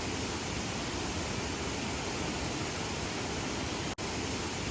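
Waterfall in monsoon flood, heavy water pouring down in a steady rushing noise, broken briefly about four seconds in.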